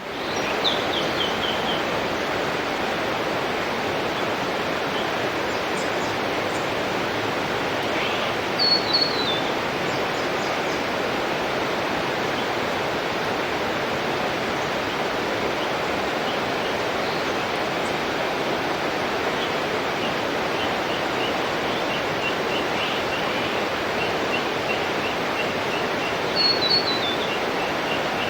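Waterfall rushing steadily, with birds chirping over it: short descending runs of notes near the start, about nine seconds in and near the end, and a string of quick repeated chirps in the second half.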